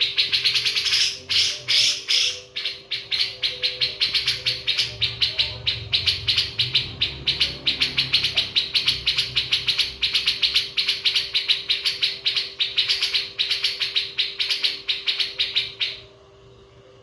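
Birds chirping: a dense, continuous run of rapid high chirps, several a second, over a steady low hum. It cuts off abruptly about a second before the end.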